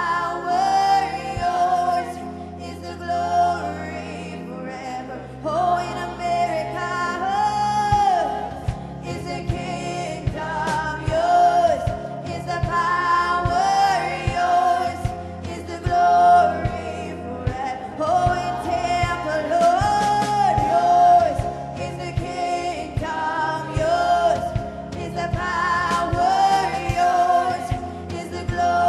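Live worship music: women singing into microphones over keyboard, with a regular drum beat from about eight seconds in.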